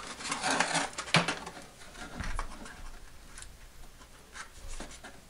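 Handling noise from a foam RC airplane being turned over and set down on a workbench: rustling and scraping with a few sharp clicks, busiest in the first two seconds, then fainter scattered ticks.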